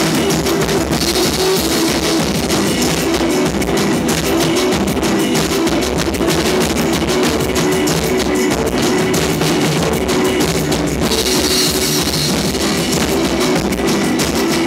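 Live rock band playing an instrumental passage: busy pounding drums with cymbal crashes, over guitar. The cymbals wash loudest twice, about a second in and again a few seconds before the end.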